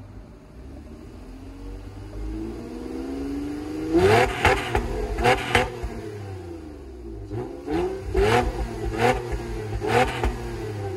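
2017 Honda Accord coupe's 3.5-litre V6 free-revving while parked, through a Borla axle-back exhaust. The revs climb slowly, then come as a run of quick, sharp blips in two groups, each rising and falling back.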